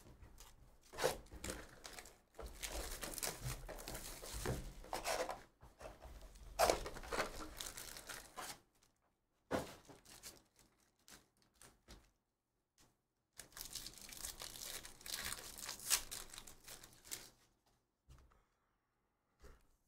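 Trading card box packaging and foil pack wrappers being torn open and crinkled by hand, in three bursts of a few seconds each with short pauses between.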